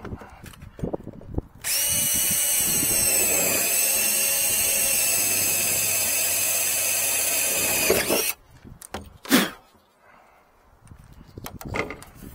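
Cordless drill (Makita) running steadily for about six and a half seconds, boring a hole through the sheet-metal roof panel of a truck cab. It stops suddenly, and a single sharp knock follows a second later.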